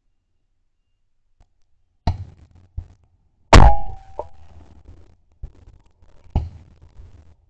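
A single shotgun shot from a Blaser F16 over-and-under about three and a half seconds in, which breaks a clay target. It is followed by a brief ringing tone and is heard from a camera mounted on the barrel. Fainter sharp cracks come about a second and a half before it and again near the end.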